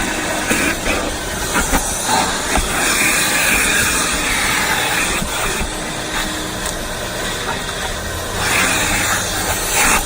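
Car wash vacuum hose sucking at a truck's interior: a loud, steady hiss that swells and dips as the nozzle moves, with scattered small clicks of debris.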